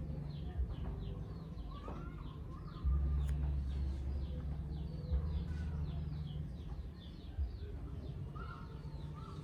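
Birds chirping: many short, quick calls repeating over a low, steady rumble.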